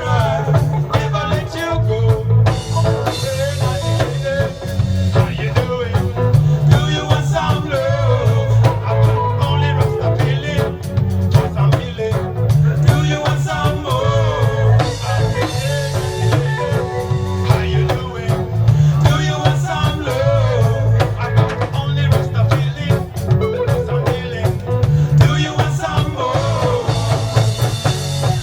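Live reggae band playing a lovers rock song: a heavy bass line, drum kit and guitar, with a male lead singer's voice over them.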